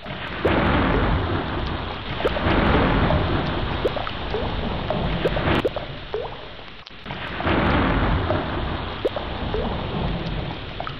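Heavy rain falling steadily with thunder rumbling. The noise swells abruptly twice, about half a second in and again about two-thirds of the way through.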